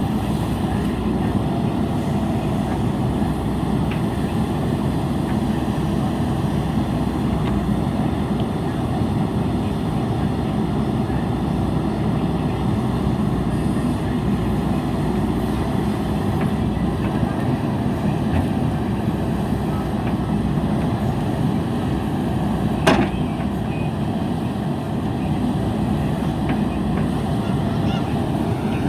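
JCB backhoe loader's diesel engine running steadily, with a single sharp knock about three-quarters of the way through.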